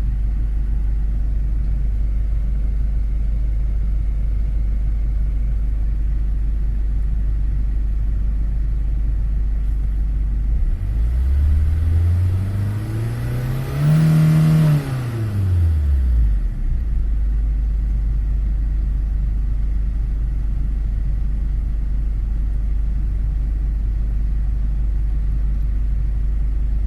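Common-rail diesel engine idling steadily, then revved once about halfway through: it rises smoothly to a peak and falls back to idle over about six seconds. One of its Bosch injectors has just been rebuilt to cut its return flow.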